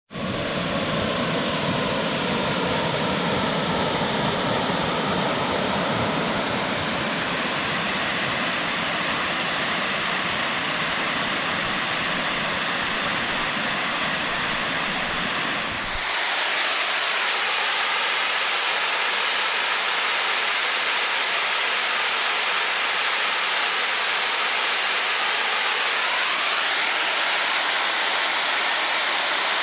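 Rushing water of a mountain waterfall or creek: a steady, even rush with a deep rumble. About 16 seconds in it cuts abruptly to a different stretch of falling water, brighter and hissier, without the low rumble.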